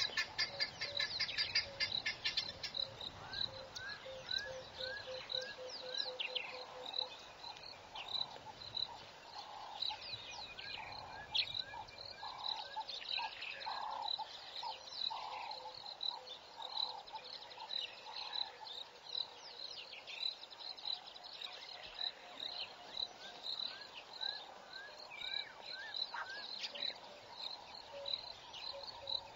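Bush ambience of several wild birds calling over a high insect chirp that repeats about every half second. A fast trill sounds in the first two seconds, and short rising whistles and lower repeated calls come and go.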